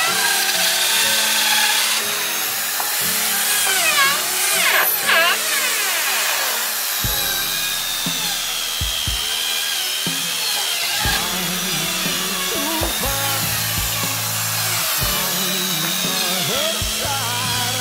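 Background music over an electric drill running, its long bit boring into the edge of a suar wood slab.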